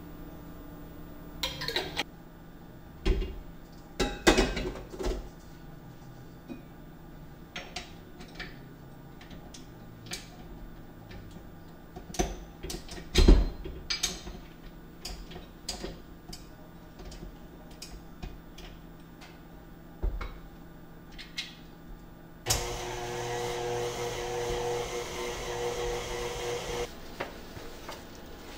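Kitchenware being handled: knocks and clinks, a few of them loud. About 22 seconds in, an electric stand mixer switches on, runs steadily with a humming whine for about four seconds, and switches off.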